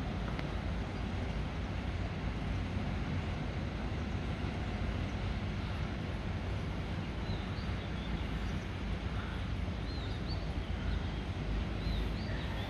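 Steady low outdoor rumble of town ambience, with a few short, faint high bird chirps from about seven seconds in.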